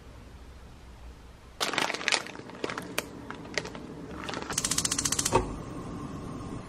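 A plastic noodle packet crinkling and being handled. It is followed by a gas stove's spark igniter clicking rapidly, about fifteen clicks in under a second, ending in a low thump as the burner lights.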